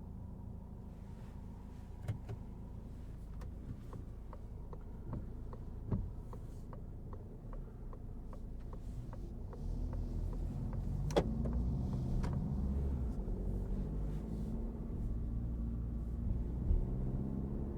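Cabin sound of a 2023 Citroen C5 Aircross with its 1.5 diesel: a low engine and road rumble that grows louder about ten seconds in as the car gets under way. An even ticking runs through the first half, and a single sharp knock comes about eleven seconds in.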